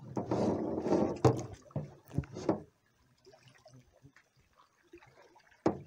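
Paddle strokes swishing and splashing through the water for the first two and a half seconds, then quiet water with one sharp knock near the end.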